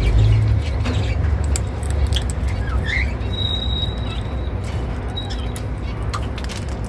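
Indian ringneck parrot giving a few short chirps and one held high note, with small sharp clicks that fit sunflower seeds being cracked in its beak, over a steady low rumble.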